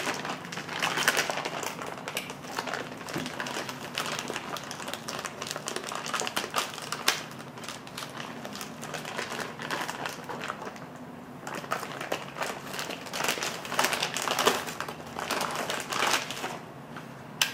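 Plastic packaging wrap crinkling and rustling as the switch panel is unwrapped by hand, in an irregular run of crackles and small clicks with a sharp click near the end.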